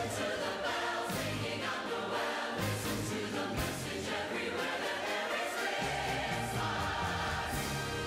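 Choir singing with instrumental accompaniment, a Christmas-season arrangement.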